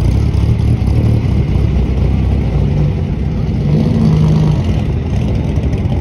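Vintage 1950s sports racing car engines running loud and rough at low speed as the cars roll past in a queue. One engine's note rises briefly about halfway through, as it is given a little throttle.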